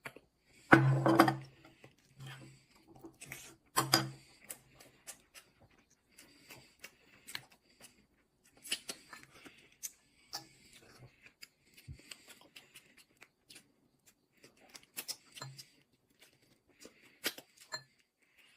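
Raw soy-sauce marinated crab being pulled apart by hand: a long run of small clicks, cracks and wet tearing sounds from the shell and meat, loudest about a second in and again around four seconds.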